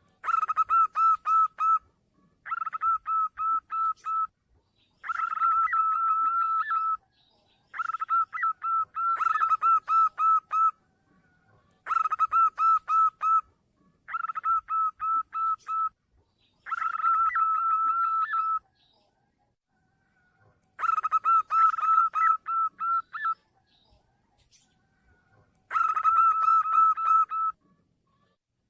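Zebra dove (perkutut) lure call: about ten phrases of rapid, stuttering cooing notes, each lasting one to two seconds, with short pauses between them.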